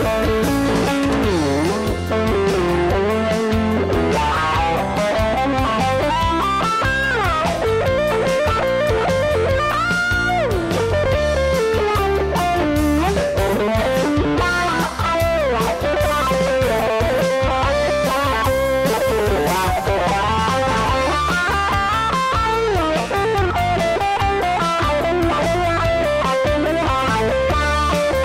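Stratocaster-style electric guitar playing a bluesy lead solo, with notes bent and sliding in pitch, over a backing track with a steady bass line.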